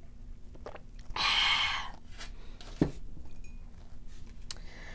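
A short, loud breathy rush about a second in, then a single sharp clink with a dull knock near three seconds: a coffee mug being set down on the table after a drink.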